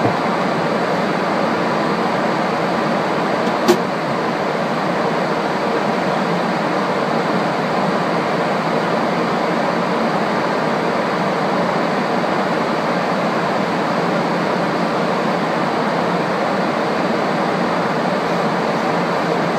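Steady rushing noise of an aircraft in flight heard from inside, the engines and airflow blending into an even roar during descent. A single short click about four seconds in.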